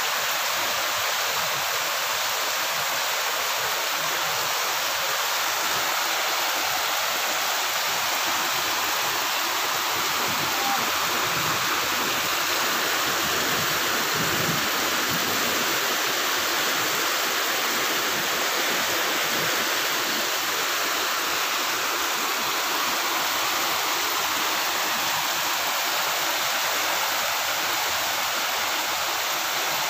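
Heavy downpour: rain falling steadily on foliage and roofs, a dense even hiss.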